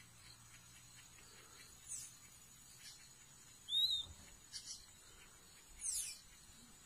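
Forest ambience: a steady, thin high-pitched insect drone, with wild birds calling over it in short whistles. Two of the calls sweep downward, and a brief arched whistle a little before the middle is the loudest sound.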